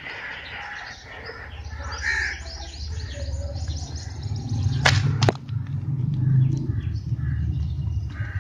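Handling noise as a compact camera is fitted onto a small tripod grip, with two sharp clicks about five seconds in, half a second apart. Birds chirp in the background.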